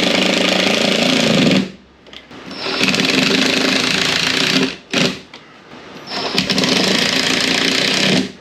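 Handheld power drill running in three bursts of about two seconds each, with a brief blip between the second and third.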